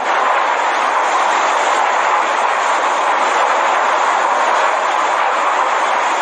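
Steady, even roar of a storm's wind and rain noise, unchanging throughout.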